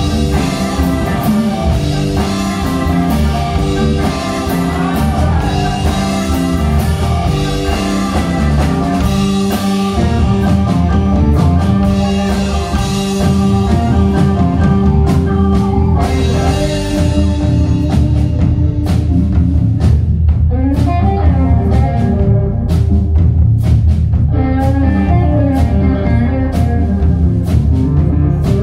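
Live blues-rock band playing: electric guitar, bass guitar, drum kit and keyboard.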